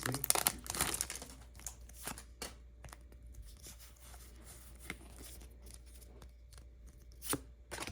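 Foil booster-pack wrapper crinkling as it is torn open in the first second, then quieter scattered rustles and clicks of trading cards being handled, with a couple of louder clicks near the end.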